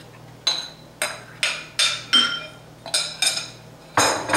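A metal fork clinking against glass bowls while cooked chicken is scraped out and shared into small glass dishes. There are about eight sharp, ringing clinks, then a louder clatter near the end.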